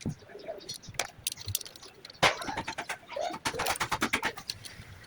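Metal hand tools clicking and knocking during engine work on the fuel injectors, with a sharp knock about two seconds in and a quick run of clicks a little later.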